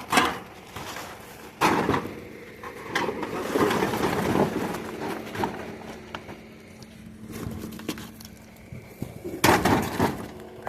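Rummaging in a dumpster: a series of knocks, rattles and clatters as items are moved and pulled out, the loudest bang near the end, over a faint steady hum.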